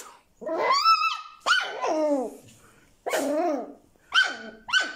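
Young puppy barking and grumbling in a run of about five short calls, each sliding up or down in pitch. It is an angry, 'talking' complaint, which the caretaker takes for displeasure.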